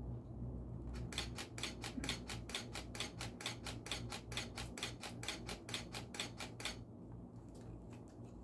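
A camera shutter firing in continuous burst: an even run of sharp clicks at about four a second for five or six seconds, stopping shortly before the end, over a low steady hum.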